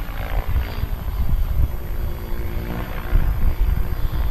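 Rigid-rotor helicopter flying past fast, its engine and rotor note swelling and shifting in pitch as it passes, over a heavy low rumble.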